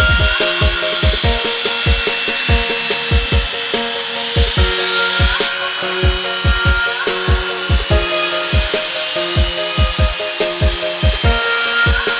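Background electronic music with a steady, deep kick-drum beat over held synth chords that change every few seconds.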